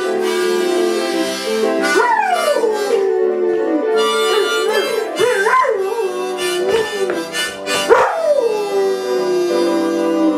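Dog howling along to blues music. Long howls slide down from a high pitch and hold a low note, about two seconds in and again about eight seconds in, with wavering howls in between.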